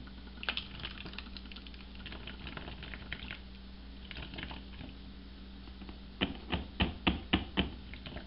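Thick gelled laundry soap concentrate glopping from a plastic measuring cup into a plastic funnel on a gallon jug, with scattered light plastic clicks. A run of sharper taps, about three a second, comes near the end.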